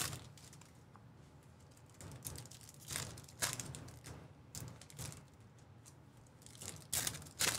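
Faint, scattered crinkles and rustles of a foil trading-card pack wrapper being handled and pulled open, a few short crackles a second or so apart.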